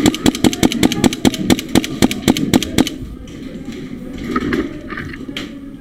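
Airsoft pistol fire: a rapid string of about twenty sharp shots, around seven a second, for the first three seconds, then one more shot near the end.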